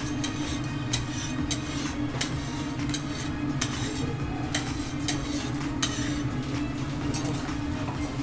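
Metal teppanyaki spatulas tapping and scraping on a steel griddle: a dozen or so sharp clinks at uneven intervals over a steady low hum.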